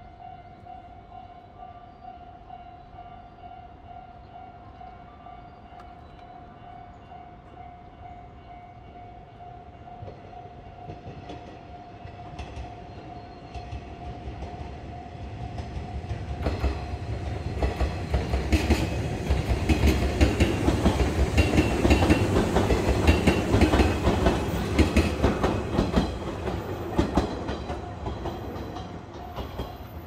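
Level-crossing warning bell dinging steadily. From about halfway in, a JR 103-series electric commuter train passes over the crossing, growing loud with rapid wheel clatter over the rail joints, then easing off near the end.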